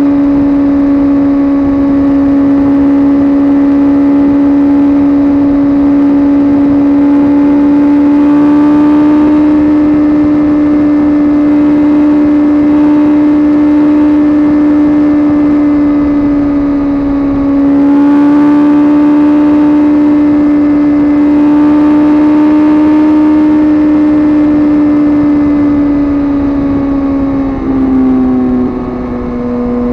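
Suzuki GSX-R sport bike engine running hard under steady throttle, a loud sustained drone whose pitch rises and falls slightly. It dips briefly about two-thirds of the way through, and near the end the pitch drops a step.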